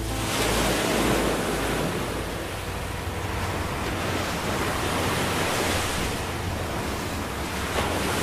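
Water rushing and splashing steadily as a moving yacht's hull churns up a foaming wake.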